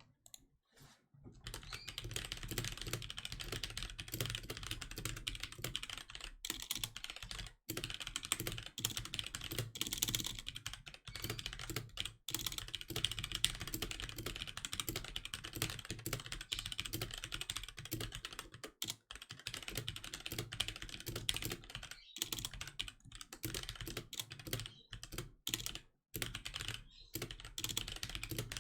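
Continuous fast typing on a HyperX Alloy Origins Core mechanical keyboard with HyperX Aqua tactile switches: a dense stream of key clacks, broken by a few brief pauses.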